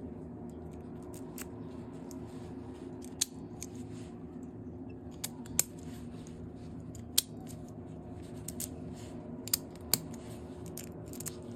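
Scattered, irregular sharp clicks and snips of small hand work, over a steady low hum.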